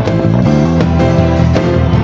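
Praise band music with a prominent bass guitar under the band and a steady beat, no singing.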